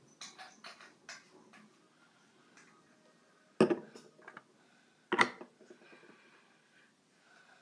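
Light clicking from something being handled, then two loud knocks about a second and a half apart as a hand bumps against the recording phone.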